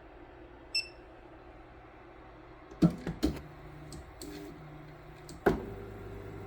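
Creality Ender 3 V3 KE 3D printer: a short electronic beep, then several sharp clacks with a low motor tone as the print head moves, and another clack before it settles into a steady hum.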